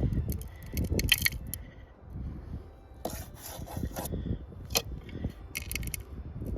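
Stony, gravelly dirt being scraped and rattled in several short bursts while a metal-detector target is dug out of the ground.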